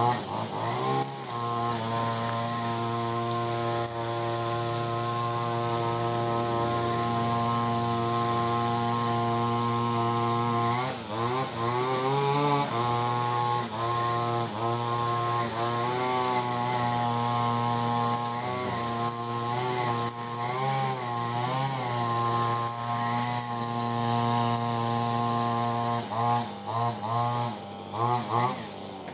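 Ogawa 26cc two-stroke brush cutter running near full throttle, spinning a trimmer head with 2.2 mm round nylon line. The engine note holds steady at first. From about eleven seconds in it sags and recovers again and again as the line cuts into long, thick grass, with several quick dips near the end.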